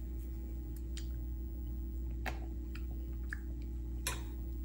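A spoon clicking faintly against a bowl a few times as a boy stirs snow ice cream, over a steady low hum.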